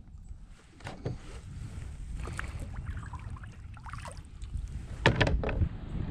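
Knocks and clatters of a just-caught bream and gear being handled in a small plastic fishing boat, with a cluster of louder clunks about five seconds in, over a steady low rumble.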